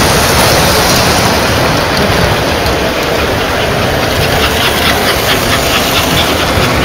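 O-gauge model trains running on three-rail track: a steady rumble and whir of wheels and motors, with light clicking in the middle stretch.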